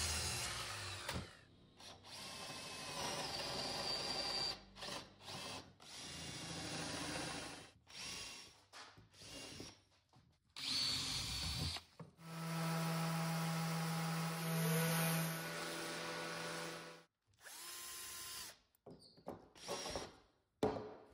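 A montage of power-tool bursts: a Festool KS 120 sliding miter saw running briefly at the start as it finishes a cut through a wooden table apron, then a cordless drill whirring in several short runs and one longer steady run, boring into the apron's edge, with abrupt cuts to silence between them.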